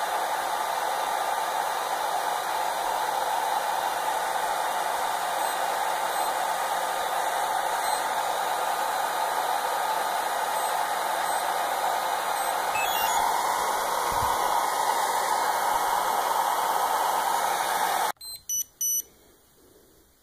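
HTRC T240 Duo balance charger's cooling fan running steadily with an even rushing whir, then cutting off abruptly near the end. A few short electronic beeps from the charger follow.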